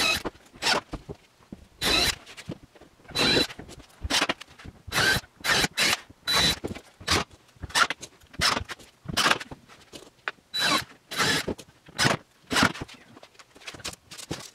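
Cordless 20V drill driving screws into a plywood cabinet top: a long run of short bursts of motor whine, one after another, with short pauses between screws.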